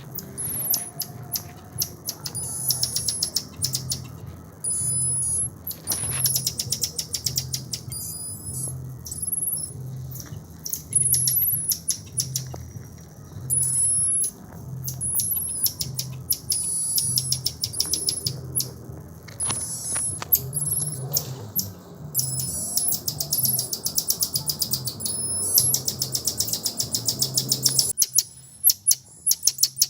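Birds chirping: short high whistled notes and fast buzzy trills, repeated throughout, over a low pulsing hum.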